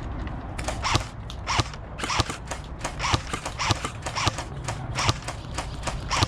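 Running footsteps, about three strides a second, each a sharp knock.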